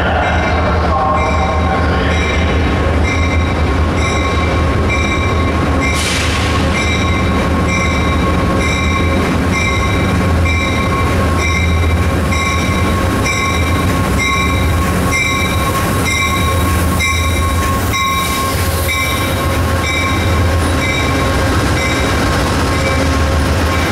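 Amtrak passenger train creeping into a station track: the steady low rumble of a GE P42 diesel locomotive, a high steady squeal, and a bell ringing in even strokes about one and a half times a second. A short hiss of air comes about six seconds in.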